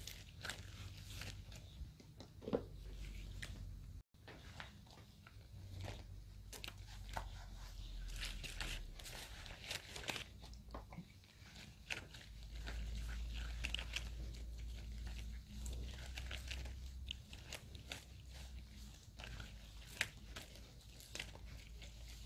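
Tint brush and gloved fingers working straightening cream through wet hair: a long run of short, irregular, wet scratchy strokes, close up.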